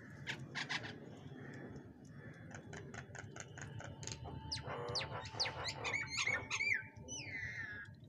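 Bank mynas and brahminy starlings calling: short sharp chirps that speed into a quick run, then louder hooked whistles and a long falling whistle near the end.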